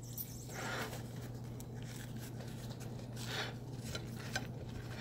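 Faint rubbing and scraping handling noises, soft and scattered, with a small click near the end, over a steady low hum.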